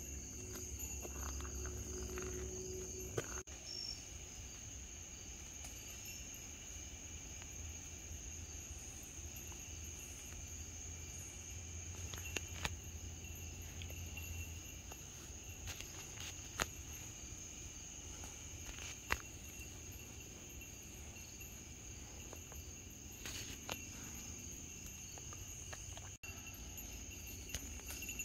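Late-summer insect chorus, crickets and katydids, chirring steadily in several high-pitched layers, with a few scattered sharp clicks.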